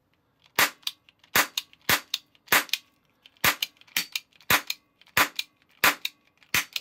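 Die-cast metal toy cap pistol firing a ring of 12-shot ring caps in quick succession: about ten sharp cap pops, roughly one every half second or so with a brief hitch near the middle, and faint clicks of the action between them.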